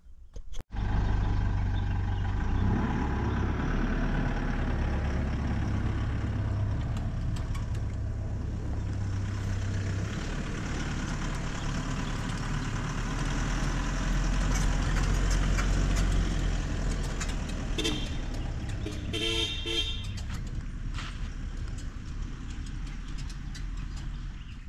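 A motor vehicle's engine running steadily with a low rumble, and a brief horn-like toot about three-quarters of the way through.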